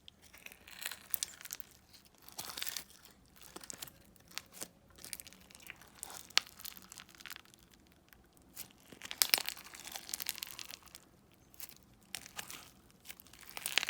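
Crunchy bead-filled slime being kneaded and stretched by hand: irregular bursts of crackling and popping with sharp sticky clicks, loudest about nine seconds in.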